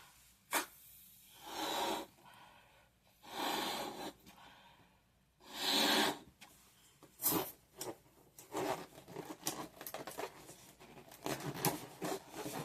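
A rubber balloon being blown up by mouth: three long breaths puffed into it a couple of seconds apart, then a string of small rubbery crackles and squeaks as the balloon is handled. A sharp snap comes just before the first breath and another after the third.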